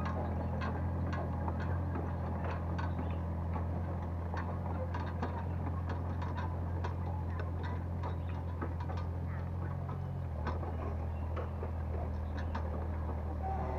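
Excavator's diesel engine running steadily, with many small irregular clicks and knocks over it; the engine note shifts about ten seconds in.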